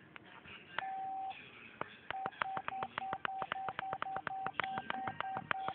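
Electronic key beeps from a keypad: one longer beep about a second in, then from about two seconds in a rapid run of short beeps at one pitch, about five a second, each with a click at its start.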